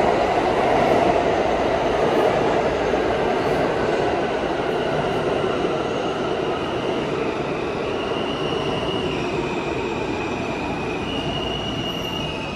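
New York City subway train moving along the platform with a loud rumble that slowly fades. From about halfway, thin high-pitched squealing tones set in and change pitch in steps.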